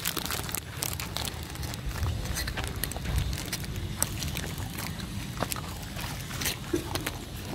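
Street dogs crunching biscuits: scattered short, crisp crunches throughout, over a steady low rumble.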